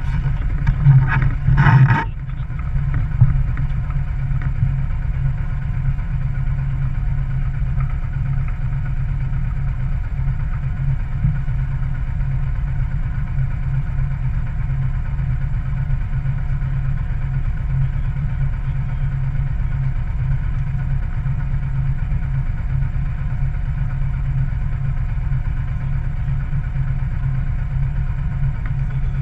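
A sailboat's auxiliary engine running steadily at low speed while the boat motors in toward a dock. A brief louder rush of noise is heard in the first two seconds.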